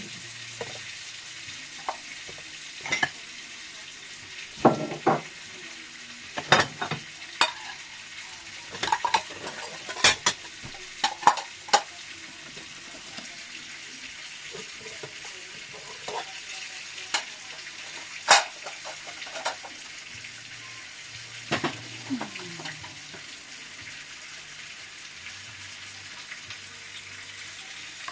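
Food frying in a pan with a steady sizzle. Metal utensils and dishes clink sharply a dozen or so times over it, most of them in the first two-thirds.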